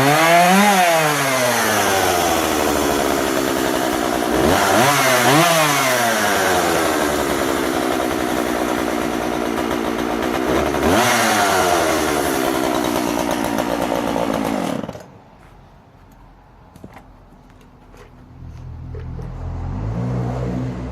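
Husqvarna 141 40cc two-stroke chainsaw at full throttle cutting wood. The engine pitch drops under load and climbs again as the chain clears the cut, several times; the owner feels it is slightly lean at the top end in the cut. The engine stops abruptly about 15 seconds in, and a low rumble builds near the end.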